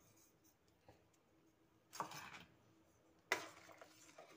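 A steel spoon scraping and clinking against a steel pot of hot milk while stirring, heard twice; the second, a little past three seconds in, is the louder and sharper.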